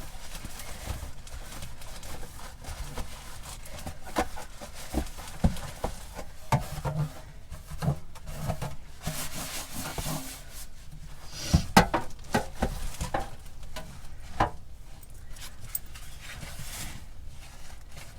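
Scattered knocks, clicks and rubbing from fridge trays and drawers being handled and wiped, with one louder knock a little past halfway.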